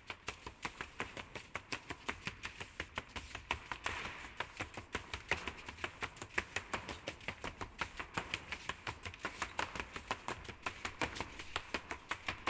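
Several push brooms swept and struck on a stage floor in unison as a percussion routine: a fast, steady rhythm of sharp brushing strokes and taps, about four or five a second.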